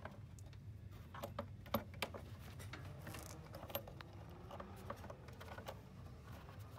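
Light clicks and small rattles of a hand fitting a Chevrolet Vortec V8's engine cover back in place and turning its retaining nut by hand, with a sharper click a little under two seconds in, over a steady low hum.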